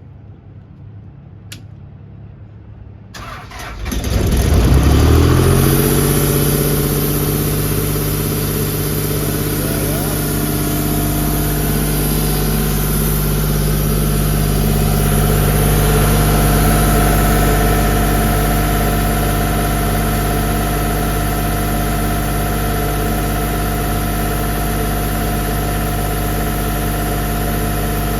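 The 49 hp John Deere diesel engine of a CompAir LeRoi C175 portable air compressor starting up. About three seconds in it cranks and catches within a second, surges up, then settles into a steady idle.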